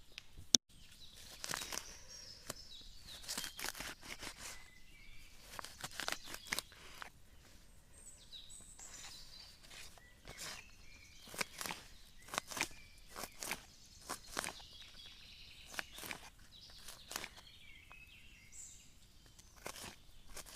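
Raw potato being cut up by hand for potato pancakes: a long run of irregular scraping strokes, a little over one a second. One sharp click about half a second in.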